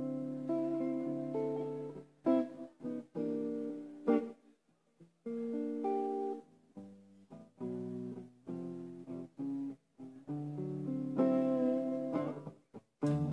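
Guitar alone playing a slow blues: chords and short phrases separated by brief pauses.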